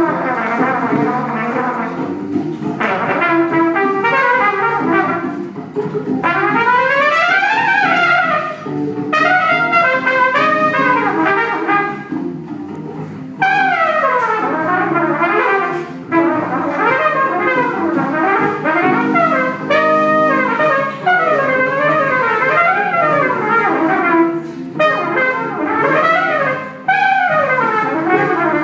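Trumpet and Hammond organ playing together, with fast runs sweeping up and down in pitch.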